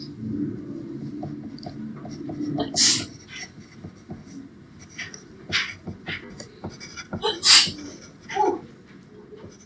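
A person having a sneezing fit: a string of sudden sneezes, the loudest about three seconds in and about seven and a half seconds in, with smaller ones between and after.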